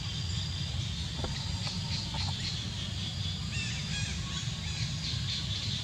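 Outdoor ambience: a steady low rumble under a steady high hiss, with a quick run of short, high chirps about three and a half seconds in.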